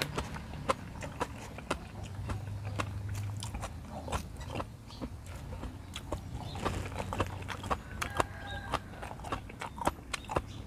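Close-up chewing of a mouthful of raw beef liver, with wet smacking and irregular clicks of the lips and tongue.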